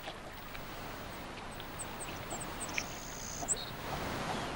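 Wind and lapping water over a rippled pool, with a few short, very high bird chirps and one longer high note in the middle.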